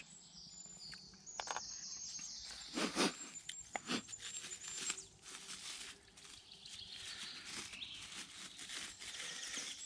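Small birds chirping and singing, with the crinkle and rustle of a plastic food bag being handled to get a block of cheese out, and a few sharp clicks, the loudest about three seconds in.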